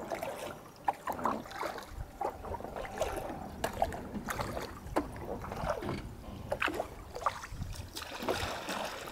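Quiet water sounds around a kayak: paddle drips, small trickles and lapping, with scattered light knocks.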